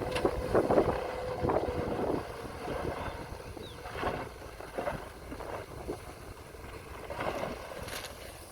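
Earthmoving machinery at work: uneven engine rumble with irregular bursts of noise and wind buffeting the microphone.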